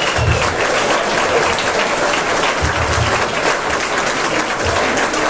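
Audience applauding steadily in a hall, with a few dull low thumps mixed in.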